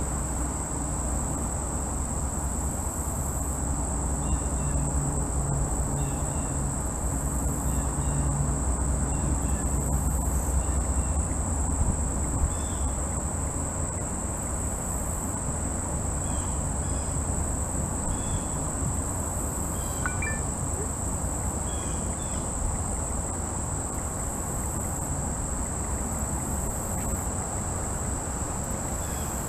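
Insects droning with one steady high-pitched note, pulsing faintly about every second and a half. A low rumble runs underneath, stronger for the first dozen seconds, with a few faint short chirps.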